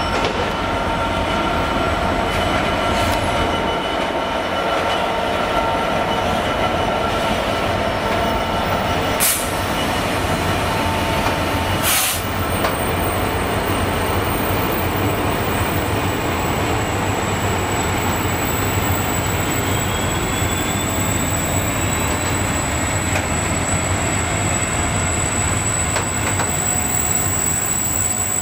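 Class 66 two-stroke diesel locomotive hauling a freight train of box wagons past, its engine running as it goes by, followed by the wagons rolling over the rails. Two sharp knocks come a few seconds apart near the middle, and a high steady squeal from the wheels runs through the second half.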